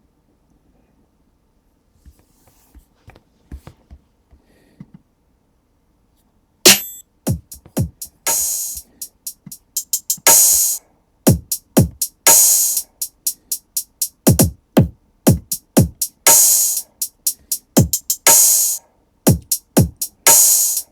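A few faint clicks, then about seven seconds in a drum-machine loop starts playing: deep kicks that drop in pitch, and sharp snares in a steady hip-hop pattern.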